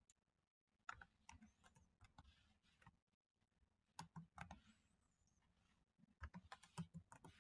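Faint typing on a computer keyboard, keystrokes clicking in three short bursts: about a second in, about four seconds in and about six seconds in.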